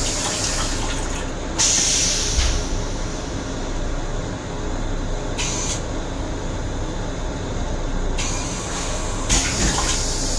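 Stainless steel railcar toilet flushing: rinse water sprays into the bowl in several short hissing spurts, with gaps between them.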